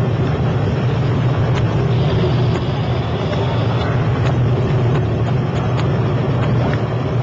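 Speedboat engine running steadily at speed, with rushing wind and water noise and a few faint knocks.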